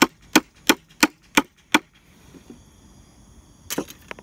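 Quick, regular hammer taps on wood, about three a second, driving a dovetail tenon into its sliding dovetail slot. The taps stop a little under two seconds in, and a brief clatter of lighter knocks comes near the end.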